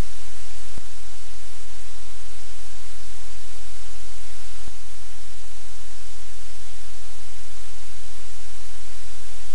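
Loud steady static hiss with a low hum beneath it, interrupted by two brief clicks, about a second in and near the middle.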